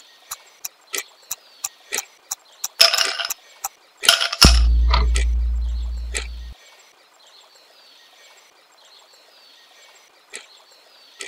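Countdown-timer ticking, about three sharp ticks a second, then two short noisy bursts and a deep low boom that fades over about two seconds; faint hiss with an occasional tick follows.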